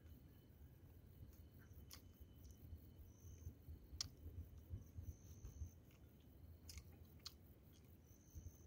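Faint close-up chewing with scattered wet mouth clicks and smacks, the loudest about four seconds in.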